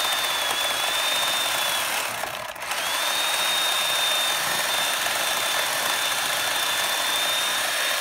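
Small Poulan electric chainsaw running at speed and cutting into a dead oak trunk, a steady high whine over the noise of the cut. About two seconds in it eases off briefly, then picks back up and runs on steadily.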